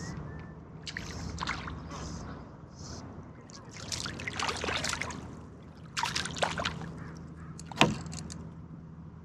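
Water splashing and sloshing around a small boat in several spells, over a steady low hum, with one sharp knock near the end.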